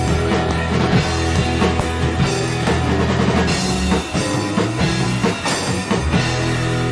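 A rock band playing together: electric guitars, keyboard and a drum kit with cymbals, the drums hitting steadily under sustained guitar and keyboard chords.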